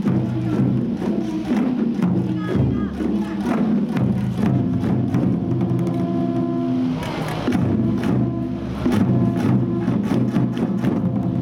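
Live folk music from a children's troupe: hand-held frame drums and a large taiko beaten in rhythm under a sung melody of long held notes.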